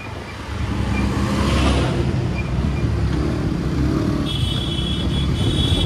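A motor vehicle engine running close by, swelling up about half a second in and staying loud. A high, thin steady tone joins it about four seconds in.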